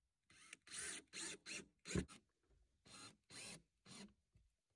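DeWalt cordless drill running in a series of short bursts at the window trim: five quick pulls of the trigger in the first two seconds, the last one the loudest, then three more.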